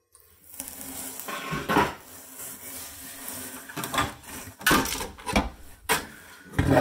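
Plastic HO scale model building pieces clattering and knocking against one another and the cardboard box as they are handled and lifted out, with several sharp knocks in the second half.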